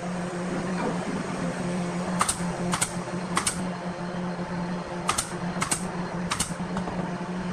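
Pneumatic nail gun firing six times into wood, in two quick runs of three shots about half a second apart.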